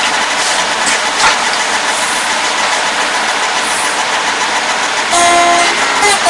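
A loud, steady hiss, then about five seconds in an acoustic guitar starts playing clear picked notes.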